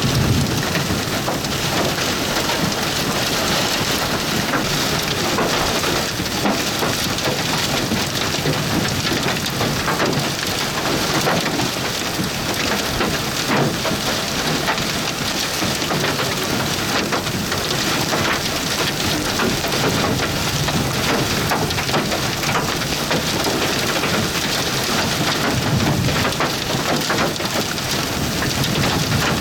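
Heavy rain beating down steadily, a dense, unbroken patter of drops hitting a hard surface.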